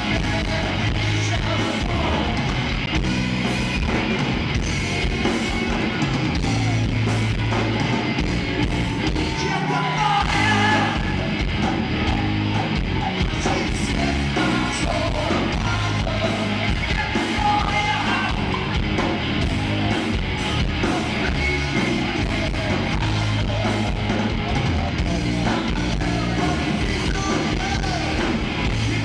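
Live rock band playing on stage: electric guitars over drums and a moving bass line, loud and unbroken.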